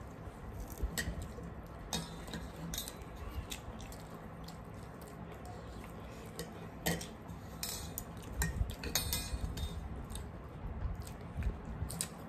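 Metal spoons clinking against ceramic bowls and steel plates as people eat, in scattered, irregular clinks.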